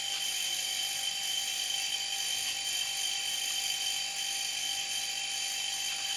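Refrigerator compressor running steadily, an even hum with a high whine, still powered through the timer-thermostat under test.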